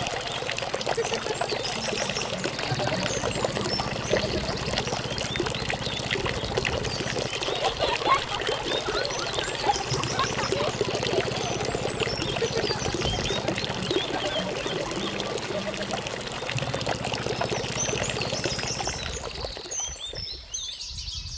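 Water pouring from the end of a small corrugated hose into a shallow puddle on sand: a steady splashing, bubbling flow with a low hum underneath, fading near the end.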